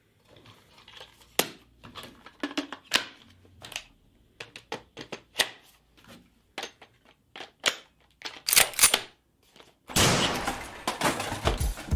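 Sharp plastic clicks, snaps and knocks of a Makita DHR182 cordless rotary hammer, its DX05 dust-extraction attachment and an 18 V battery being handled, clicked together and set down on the bench, coming irregularly. About ten seconds in, a loud rushing whoosh.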